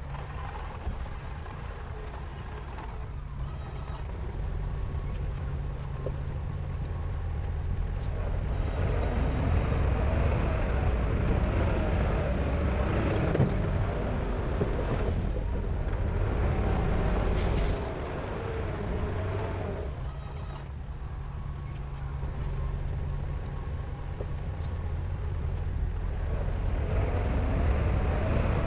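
Heavy diesel engine running, its low drone swelling and easing as the load changes. The level drops suddenly about eighteen seconds in, then builds again.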